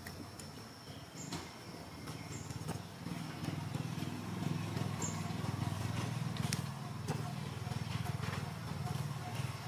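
A low, rough engine drone that grows louder about three seconds in. Above it sit a faint, steady high insect tone and scattered small clicks.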